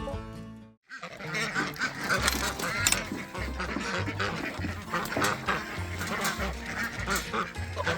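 Plucked-string intro music fades out within the first second. Then farmyard fowl call again and again, in short, irregular, pitched calls.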